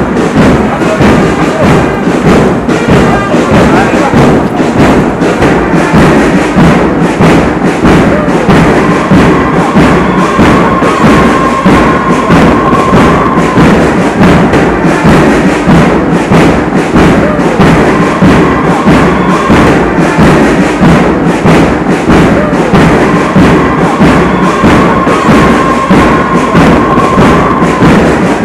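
Background music with a steady, heavy beat and a held high note that comes in three times.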